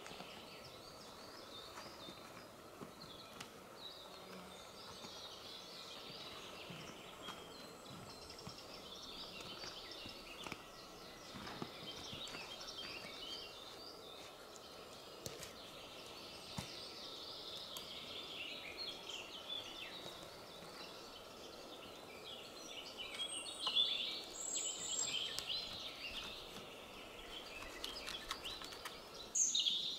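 Forest ambience with many small birds chirping and singing, louder for a few seconds near the end, and a few faint knocks from handling wooden poles and a backpack.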